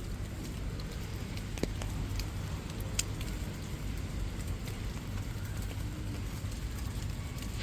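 City ambience in the rain: a steady low rumble of traffic under rain patter, with a few sharp taps of drops, the clearest about one and a half and three seconds in.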